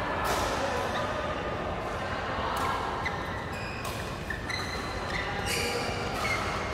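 Badminton doubles rally: sharp racket strikes on the shuttlecock, about five, a second or so apart, with short squeaks of court shoes on the floor. The hits ring on in a large hall.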